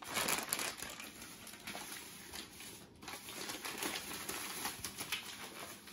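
Plastic packaging and bubble wrap crinkling and rustling as they are handled, in an irregular run of small crackles with a brief lull about three seconds in.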